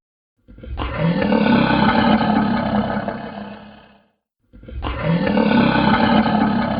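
Monster roar sound effect played twice: a deep, rough roar swells up and fades out over about three seconds, and the same roar comes again about four seconds later.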